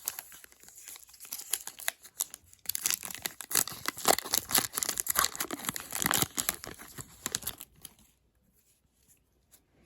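A hockey card pack wrapper being torn open and crinkled by hand, a dense crackling that is loudest in the middle and stops about two seconds before the end.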